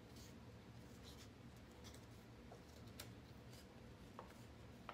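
Near silence: faint rustling of cardstock being handled, with a few small clicks.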